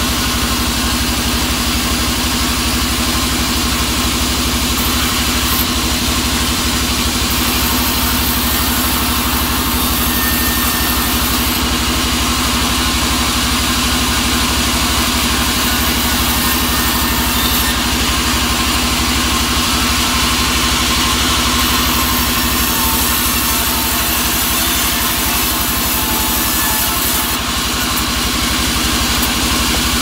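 Vertical band sawmill running steadily as albasia (sengon) boards are sawn: a continuous machine drone with a constant hum and hiss.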